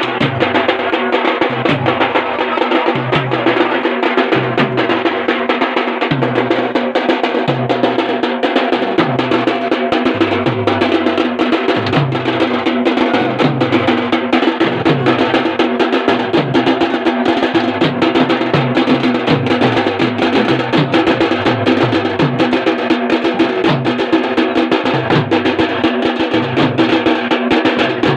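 Double-headed barrel drums beaten with sticks in a fast, continuous folk rhythm, with a deep stroke repeating about every three quarters of a second under dense rapid beats.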